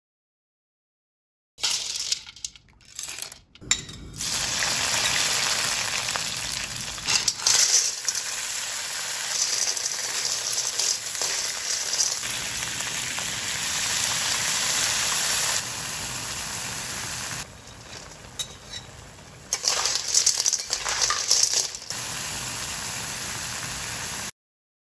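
River snails in their shells stir-frying in a carbon steel wok: hot oil sizzling, with the metal spatula and shells clinking against the wok. It starts after about a second and a half of silence and cuts off suddenly near the end.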